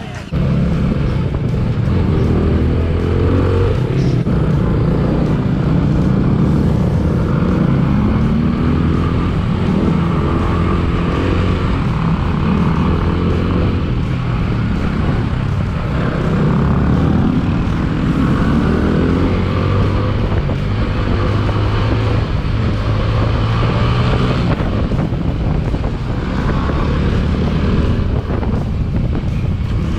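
Motorcycle engine running under way, its revs rising and falling through the gears, with wind noise on the microphone. It starts abruptly about half a second in.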